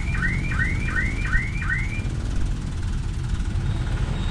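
An electronic alarm chirping in quick rising sweeps, about three or four a second, that stops about two seconds in, over the steady low rumble of idling trucks and traffic stuck in a jam.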